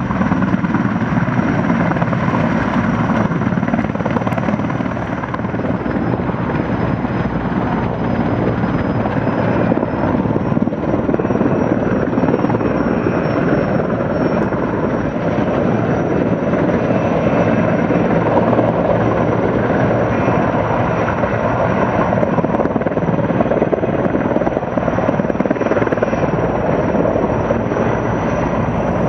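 Sikorsky S-64 Skycrane heavy-lift helicopter running steadily, with its rotor noise and twin-engine turbine whine. The high whine dips in pitch about six seconds in and climbs back a few seconds later.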